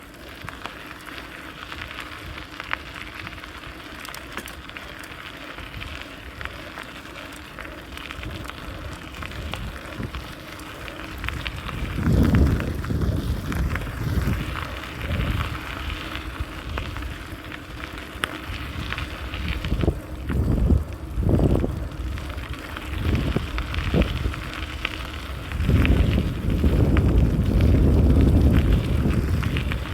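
A steady crackling hiss of tyres rolling along a path while riding. From about twelve seconds in, wind buffets the microphone in gusts, heaviest near the end.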